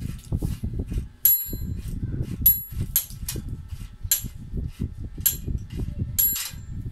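Small bell on a child's bicycle rung in short dings, about six times a couple of seconds apart, over low knocking and rattling from the bike being handled and assembled.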